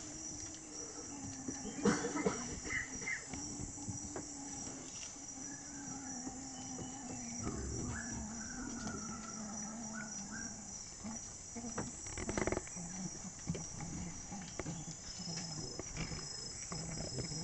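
A steady, high-pitched chorus of rainforest insects drones on throughout. A few short rustles and knocks break in, the loudest about two seconds in and again about twelve seconds in.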